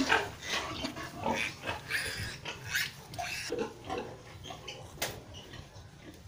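Newborn piglets squealing in a string of short, high squeals through the first three seconds or so, then quieter, with a single sharp knock about five seconds in.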